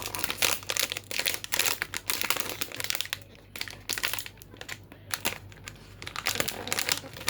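Blind-box packaging crinkling and rustling as it is handled and opened by hand, in dense crackly bursts with a quieter stretch in the middle.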